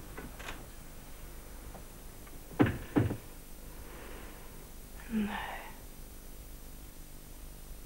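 Two dull thumps about half a second apart, then a short breathy sound a couple of seconds later, over low steady room tone and hum.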